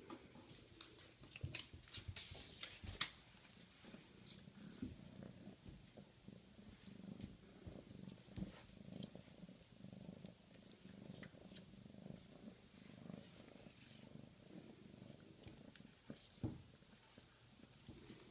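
Siamese kitten purring in a low, pulsing rumble. A burst of scratchy rustling and clicks comes about two seconds in, and a single knock near the end.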